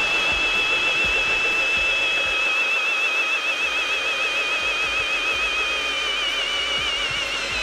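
Ridgid Octane brushless hammer drill boring a large auger bit into a log, its motor whining steadily under load. The pitch sinks gradually as the drill slows, and near the end it starts to waver as the drill strains.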